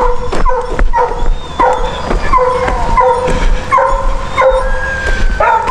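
Hunting dogs yipping and whining over and over, short high cries about one every half second to second, typical of excited hounds eager to join a chase.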